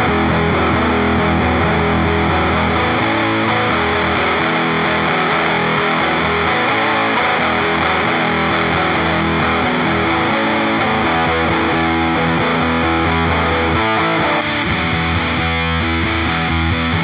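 Electric guitar played through a Supercool 77 Fuzz Blender fuzz pedal, giving a thick, distorted fuzz tone that plays without a break. The tone shifts about fourteen seconds in.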